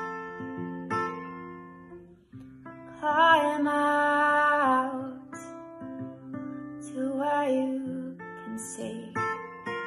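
Acoustic guitar strummed in a slow, even rhythm, with a woman singing over it: a long, loud sung line about three seconds in and a shorter phrase around seven seconds.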